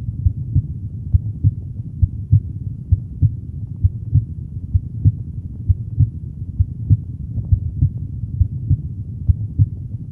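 Normal heart sounds heard through a stethoscope over the pulmonary valve area: a steady, regular lub-dub of the first and second heart sounds. The second sound is the louder, as is normal over the semilunar valves.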